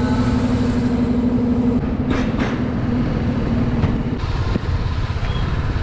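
BMW G 310 RR's single-cylinder engine running as the motorcycle pulls away. Its note is steady for the first couple of seconds, then wavers and shifts as the bike rides off.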